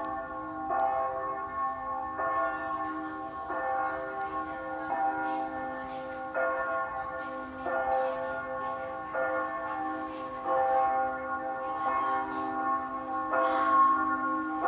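Church bells ringing, a fresh stroke about every one and a half seconds, each ringing on under the next.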